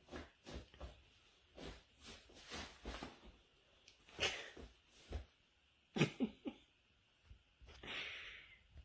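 A dog sniffing and snorting at close range, amid short rustles and taps; a longer breathy huff comes near the end.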